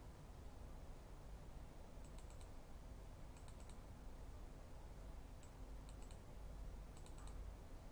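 Near silence: a faint steady low hum, with a few short groups of small, faint clicks from about two seconds in.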